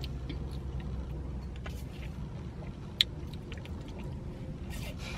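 Steady low hum of a car, heard inside the cabin, with faint sips of an iced drink through a straw and one sharp click about three seconds in.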